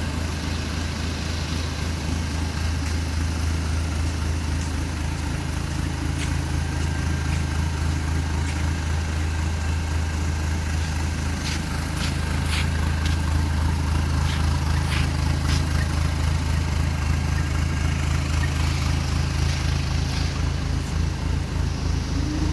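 A JAC N56 truck's 2.8-litre turbodiesel engine idling steadily, with a few sharp clicks about halfway through.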